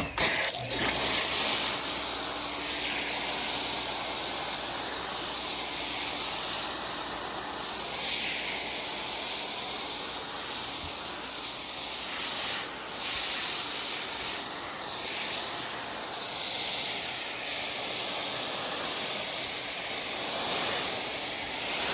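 Foam cannon on an Active 2.0 pressure washer spraying snow foam: a steady hiss of spray over the running pump, swelling and easing a little as the spray moves.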